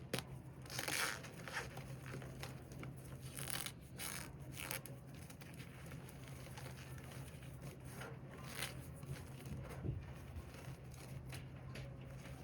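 Reformed cornstarch slab topped with loose cornstarch being squeezed and crushed by hand, giving short squeaky crunches in irregular bursts over a faint steady low hum.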